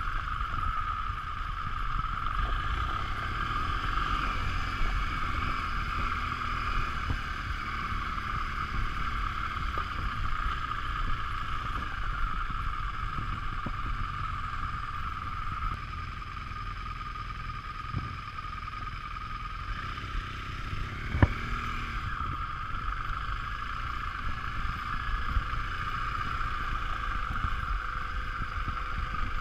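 BMW R 1200 GS LC motorcycle's liquid-cooled boxer twin running steadily while riding on a gravel track, with rumbling wind on the microphone. A single sharp knock about two-thirds of the way through.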